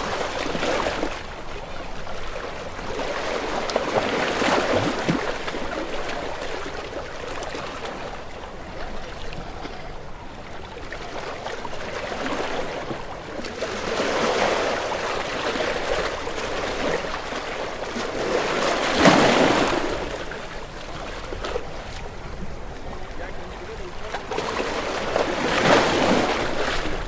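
Ocean waves breaking and washing up a shore. Each break swells up into a rush and falls away, every several seconds, and the sharpest comes about two-thirds of the way in.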